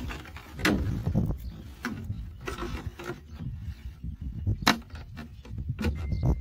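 Scissors snipping into a thin clear plastic bottle, the plastic crackling and clicking irregularly as it is pressed and cut, with one louder snap about three-quarters of the way through.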